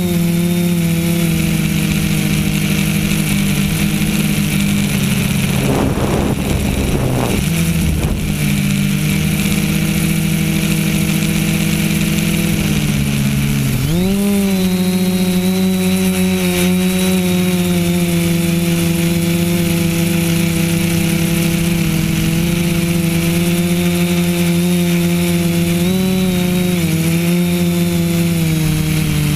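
Brushless motors and propellers of a TBS Discovery quadcopter, heard from its onboard camera, running with a steady buzzing hum. About 13 seconds in the pitch dips and then rises sharply as the throttle is pushed up, with a brief rough noise a few seconds earlier and a small rise and fall near the end.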